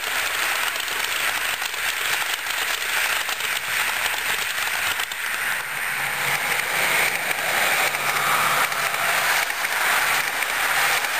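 Model train rolling along the track: a steady fine rattling clatter of wheels on the rails as the passenger coaches pass close by, a little louder in the second half.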